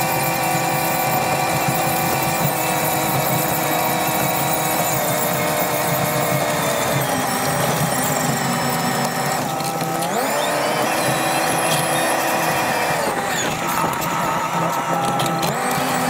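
Tractor working hard pulling a four-furrow plough, its engine and drivetrain giving a steady whining drone. The pitch dips and recovers about ten seconds in and again a few seconds later as the load changes.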